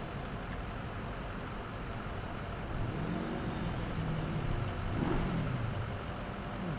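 Steady traffic and vehicle noise, with brief low pitched sounds rising and falling about three and again about five seconds in.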